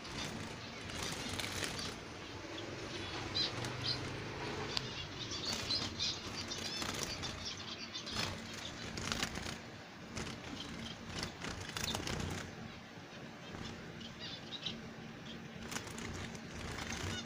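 Small cage finches fluttering their wings as they fly and hop about a wire cage, a run of short, quick wingbeat flurries, with a few brief high chirps.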